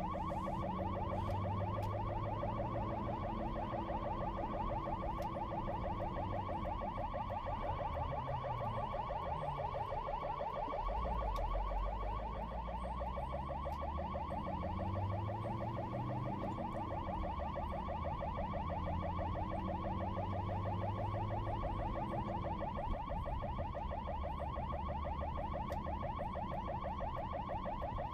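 Ambulance siren sounding continuously in a fast, rapidly repeating warble, with a low engine rumble underneath that rises and falls in pitch.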